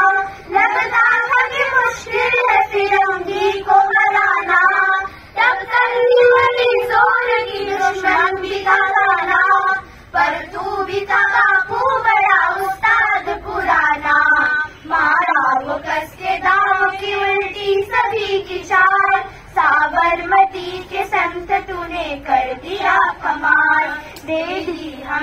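A group of schoolgirls singing a song together at microphones, phrase after phrase with short breaks for breath.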